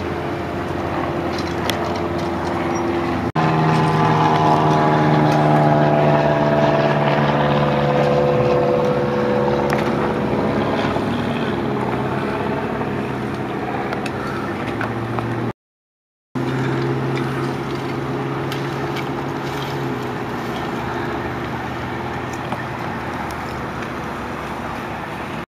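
Road traffic and running vehicle engines: a steady engine hum, with a vehicle passing close by and falling in pitch a few seconds in. The sound cuts out completely for under a second about two-thirds of the way through.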